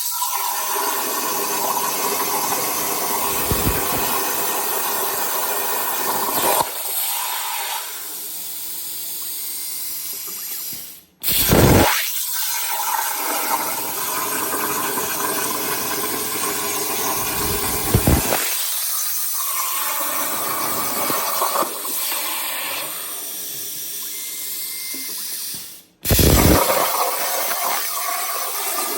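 CNC plasma cutter arc cutting 1/4-inch steel plate: a loud, steady hiss that cuts out twice for a moment and starts again each time with a louder burst.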